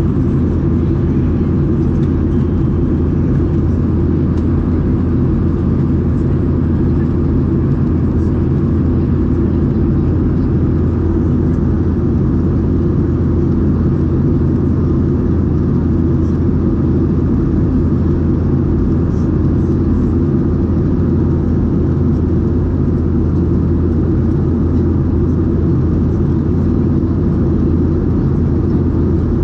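Steady low drone of a Boeing 737-800's CFM56 jet engines and airflow as heard inside the passenger cabin in flight.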